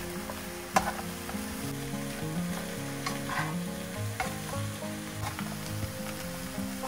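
Food sizzling and frying in hot oil in a frying pan, with a sharp click from a utensil against the pan about a second in and a few softer clicks later.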